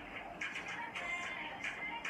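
Background music with a steady beat and a ticking hi-hat.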